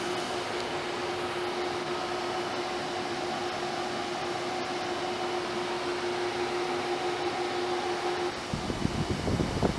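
35mm film projector and projection booth fans running: a steady mechanical hum with one held mid-pitched tone. Near the end the tone drops out and a rougher, lower rumble takes over.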